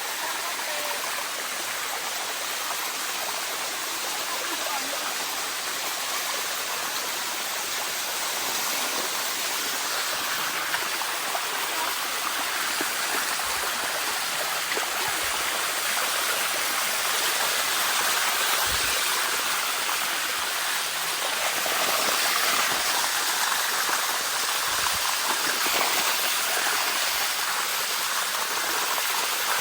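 Waterfall and stream water rushing steadily, growing slightly louder over the second half.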